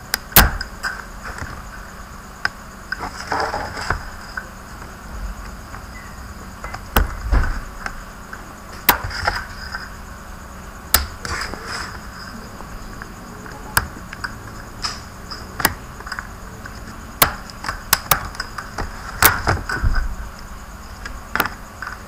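Plastic back case of an Asus S200E laptop being pried off by hand, its retaining clips snapping free in a series of sharp clicks and knocks at uneven intervals.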